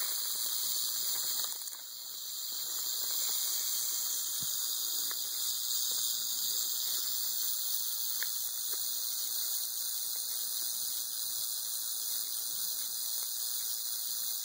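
Timber rattlesnake's rattle buzzing steadily as a defensive warning from the coiled snake, a continuous high hiss that dips briefly about two seconds in.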